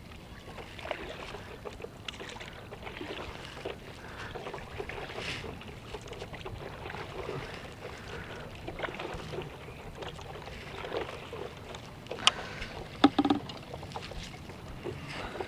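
Water splashing and lapping around a stand-up paddle board as it is paddled, with irregular small knocks on the board. Two sharp, loud knocks come about three-quarters of the way through.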